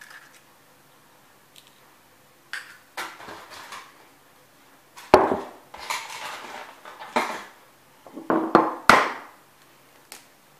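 Glass bowls and eggshells handled while eggs are cracked and separated: sharp knocks of shell and glass with scraping and rustling between them. The loudest knocks come about five seconds in and again near nine seconds.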